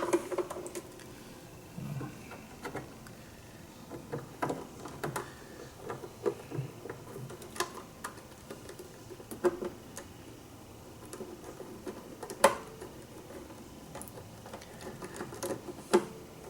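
Irregular light clicks and taps of a small screwdriver and screws being worked into a plastic equipment case, with a few sharper clicks scattered among them.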